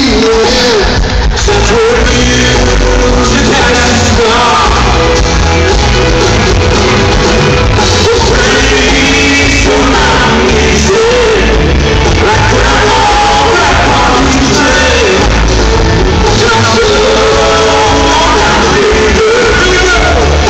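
Live country band playing loud with lead vocals, heard from among the audience in a large reverberant hall.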